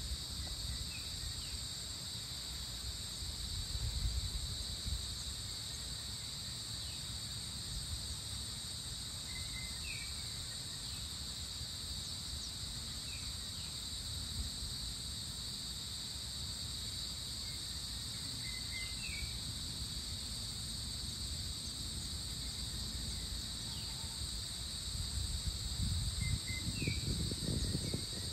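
Steady high-pitched drone of an insect chorus at dawn, with brief bird chirps now and then. A low gusty rumble runs underneath and grows louder near the end.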